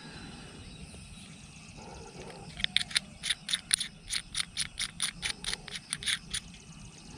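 A small animal outdoors chirping: a rapid, even run of short high chirps, about five a second, starting about a third of the way in and lasting about four seconds.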